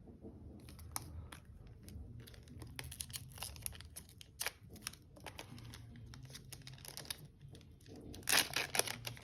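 Foil booster pack wrapper being torn open and crinkled by hand, a run of crackles with the loudest burst of crinkling near the end.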